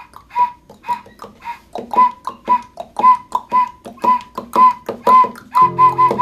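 Short toots on an end-blown wooden flute, the same note over and over at about two a second, each with a sharp attack. An acoustic guitar chord rings in near the end.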